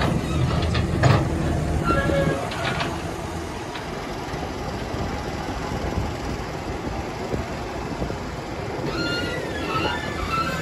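CAT hydraulic excavator's diesel engine running under load as it works soil, with a few knocks early on. Short high metallic squeals come about two seconds in and again near the end.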